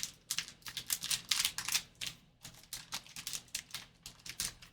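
Trading card pack wrapper being torn open and handled, a quick, irregular run of crinkling crackles.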